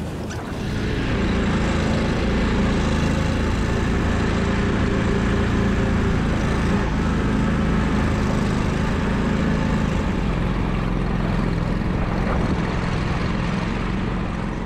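Engine of an Argo amphibious tracked vehicle running steadily as it drives across boggy ground, heard from on board. The level steps up about half a second in.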